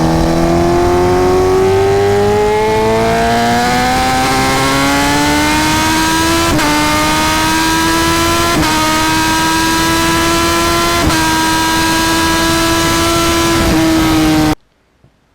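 Suzuki GSX-S1000's inline-four engine accelerating hard, picked up by a microphone under the seat with little wind noise. The engine note climbs steadily for several seconds, then holds high with several quick upshifts, each a short dip in pitch. It cuts off abruptly near the end.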